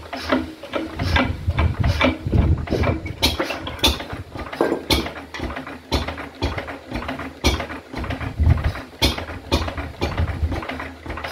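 Vintage Lister 3 hp side-valve stationary petrol engine, just started by spinning its flywheel, running at a real low idle speed. Each firing stroke is a sharp knock, coming at uneven intervals over a steady low rumble.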